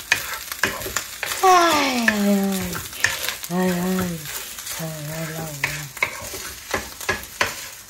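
Fried rice sizzling in a frying pan while a wooden spatula stirs and scrapes it, with frequent knocks of the spatula on the pan. Three drawn-out wordless vocal sounds cut in, the first and loudest about a second and a half in, falling in pitch.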